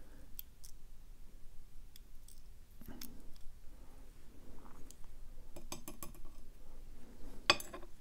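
Steel tweezers setting small brass lock pin parts into a metal pin tray: a scattering of light metallic clicks and taps, the sharpest near the end.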